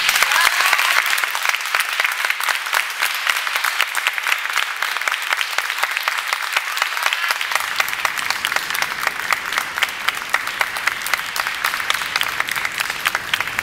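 An audience applauding, a steady dense clapping that runs on without a break.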